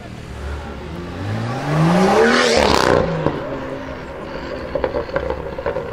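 Tuned BMW M2's turbocharged straight-six with an aftermarket exhaust, accelerating hard. The revs climb for about a second and a half to a loud peak, then drop off suddenly.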